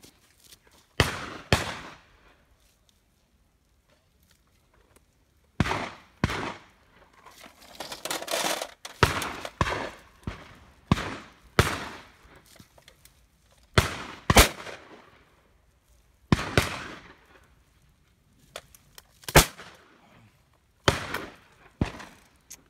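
Shotgun shots at driven partridges, about eighteen in all, mostly fired in quick pairs about half a second apart. Each shot cracks sharply and trails off in a short echo, and some shots are louder than others.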